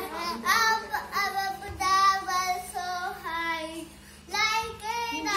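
A young child singing a melody in short phrases with held notes, with a brief break about four seconds in.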